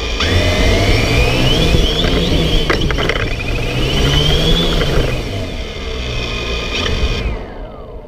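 DJI Flamewheel F450 quadcopter's motors and propellers whining loudly as it takes off and climbs, the pitch rising and falling with the throttle. About seven seconds in the whine falls in pitch and drops away sharply.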